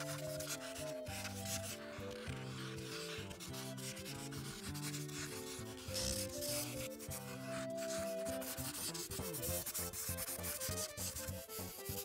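Quick, repeated coloring strokes rubbing and scratching across paper, over soft background music.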